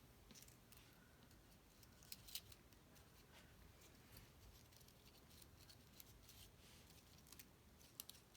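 Faint, scattered light ticks and rustles of cardstock paper flowers being handled and laid down on a card, a little louder about two seconds in and again near the end.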